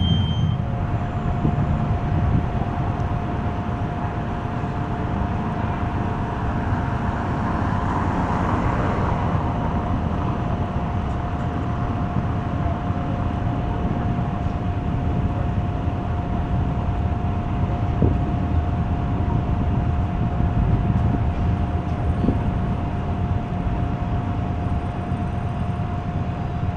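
A CAF Urbos 3 low-floor tram passing close and pulling away, leaving a steady low street rumble. A faint steady high tone holds throughout.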